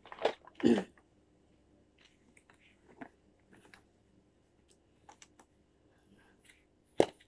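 Small clicks and rustles of pedicure supplies and a case being handled, with two louder knocks in the first second and another sharp knock near the end.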